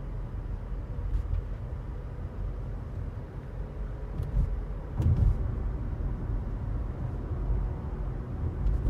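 Road and engine noise inside a moving car's cabin: a steady low rumble, louder for a moment about five seconds in.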